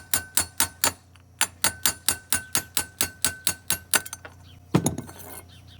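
A hammer striking steel in quick, even blows, about four a second, with a ringing metallic tone, knocking a steel part out of a small lawnmower engine during teardown. The blows pause briefly about a second in and stop after about four seconds. A single louder clatter of metal follows near the end.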